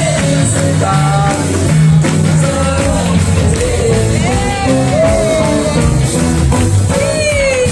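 Music: a song with a singing voice over a rock-style band accompaniment.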